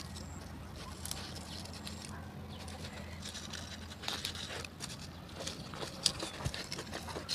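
Close-up eating by hand: fingers handling food on a banana leaf, then chewing with wet mouth clicks and smacks from about four seconds in, over a steady low hum.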